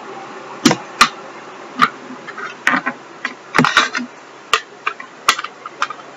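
Irregular small clicks and knocks of small objects being picked up and set down on a desk, about a dozen spread over several seconds, over a steady background noise.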